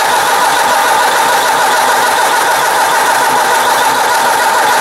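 Starter motor cranking the Ford 800 tractor's engine over without it firing, the ignition coil disconnected. A loud, even whirring that holds steady throughout.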